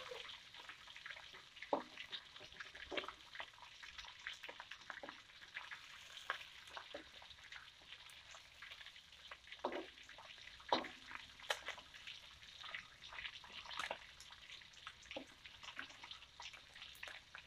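Pieces of mackerel tuna shallow-frying in oil in a wok: a faint sizzle with scattered crackles and pops. A few louder knocks come from the metal spatula turning the fish in the wok, around two seconds in and twice near the middle.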